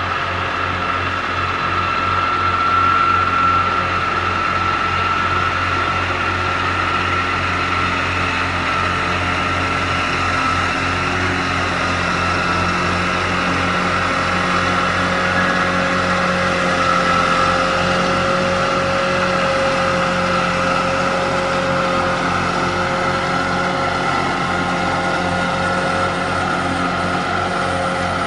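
A farm tractor's diesel engine runs steadily under load while it drives a mower through grass, with a steady high whine over the engine hum.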